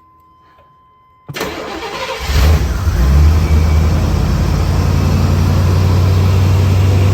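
1982 Corvette's 350 V8 cranked over on the starter, catching a second or so later and settling into a steady idle, on its fresh oil. A faint steady tone is heard before the cranking begins.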